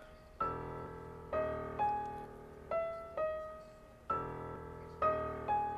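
Music: a slow piano-like keyboard melody of single struck notes that ring and fade, playing a short phrase that repeats about every four seconds.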